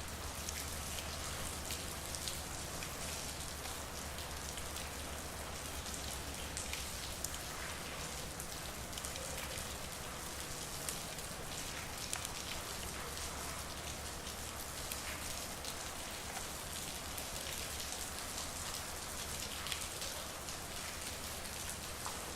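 Steady rain falling on a street, a continuous hiss with scattered individual drop ticks and occasional slightly louder drips, over a faint low hum.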